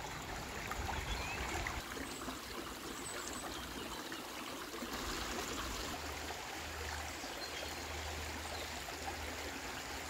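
A small shallow stream running over stones in a steady trickle.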